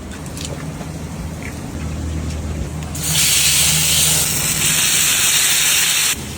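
Loud steady hiss of steam in a cooking stall, starting suddenly about three seconds in and cutting off abruptly about three seconds later, over a low steady hum.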